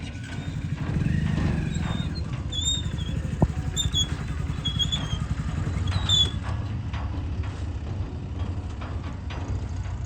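Diesel engine of heavy earthmoving machinery running steadily, with a few short high chirps over it between about two and six seconds in.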